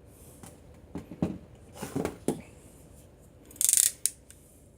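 A hand crimping tool and crimped wire being handled: a few light knocks and clicks, then a short loud rasp and a sharp click near the end.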